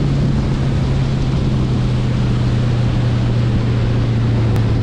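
Ski boat engine running steadily at towing speed under a loud rushing wash of wind and water. The engine note eases slightly lower.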